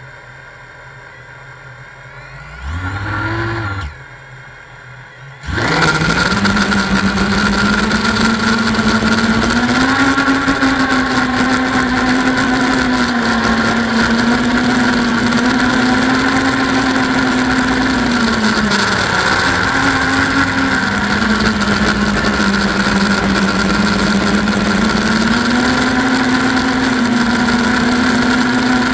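Eachine Wizard X220 quadcopter's brushless motors and propellers, heard from a camera mounted on the quad. A short spin-up and wind-down about three seconds in, then the motors throttle up at about five and a half seconds into a loud steady whine that rises and falls in pitch with the throttle.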